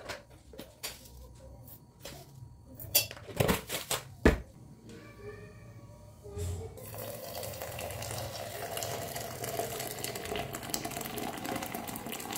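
A few sharp knocks and clinks, like kitchen utensils, followed about halfway through by a kitchen tap running steadily into a sink.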